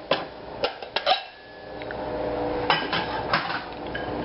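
Ceramic bowls knocking and clinking against each other and the shelf as they are lifted down from a kitchen cabinet: several sharp knocks in the first second or so. A steady hum comes in after about a second and a half, with a few more knocks around three seconds in.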